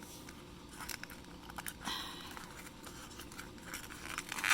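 Small cardboard blind-box packaging being handled and torn open: faint crinkling and scattered small clicks, with a brief louder rip about two seconds in.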